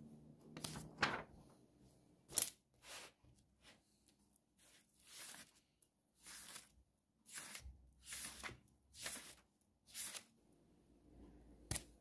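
Paper pages being turned and handled: a string of short, soft rustles and swishes, about a dozen, with one sharp tap near the end.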